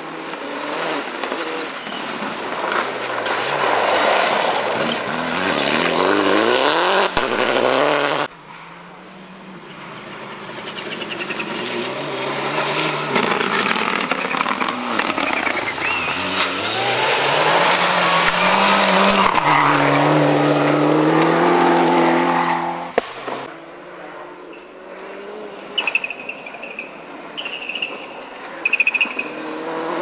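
Rally cars at full throttle on a special stage: engines revving up through the gears and dropping back as they pass. The sound comes in separate edited clips that break off abruptly about 8 seconds in and again after about 23 seconds.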